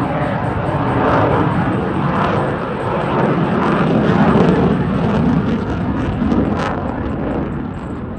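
F-22 Raptor fighter jet's twin Pratt & Whitney F119 turbofans running at high power as the jet flies its display, a loud rushing jet noise that swells to a peak about halfway through and then slowly fades, with a brief crackle near the end.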